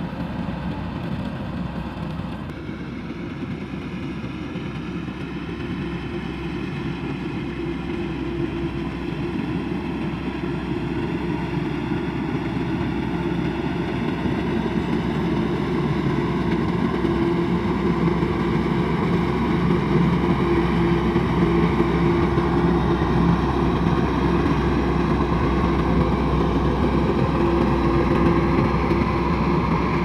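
A tracked rice combine harvester's engine and machinery running steadily while it harvests. The sound grows louder through the second half as the machine comes nearer.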